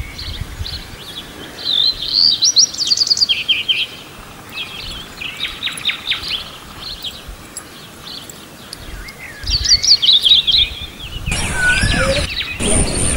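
Songbirds chirping and trilling in several quick bursts of calls. Near the end a louder steady rushing noise comes in.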